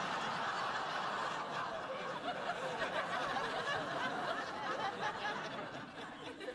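Studio audience laughing at a punchline, a long crowd laugh that dies away near the end.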